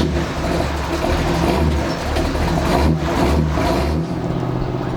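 A muscle car's big-block V8 catching and running unevenly just after start-up; about four seconds in it settles to a steadier idle.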